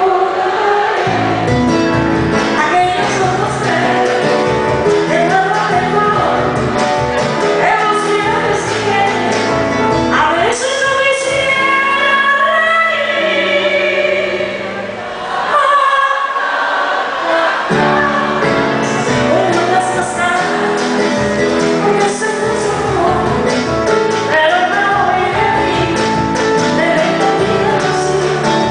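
A woman singing a slow ballad live into a microphone, with keyboard accompaniment.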